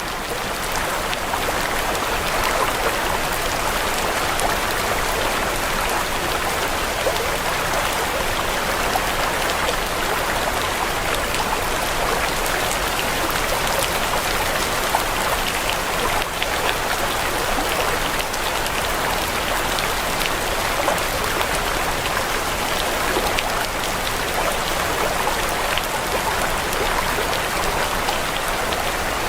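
Steady hiss of falling water, like rain, with scattered small drop ticks throughout.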